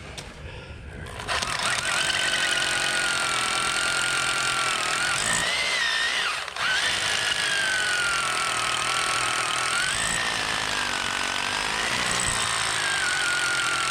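Hammer drill boring into concrete for a wedge anchor, starting about a second in. It runs steadily, its motor whine drifting up and down with the load, and it lets off briefly about six and a half seconds in.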